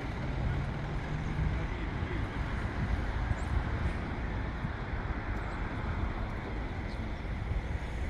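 Steady outdoor rumble of road traffic and running vehicle engines, with a faint engine hum in the first second or so.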